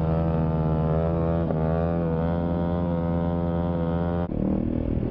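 Dirt bike engines running at a steady, high-revving cruise, the KTM ridden right under the microphone, its pitch wavering slightly. Near the end the sound cuts abruptly to a lower, rougher engine note.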